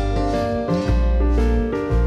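Instrumental background music: held chords over a bass line that moves to a new note about once a second.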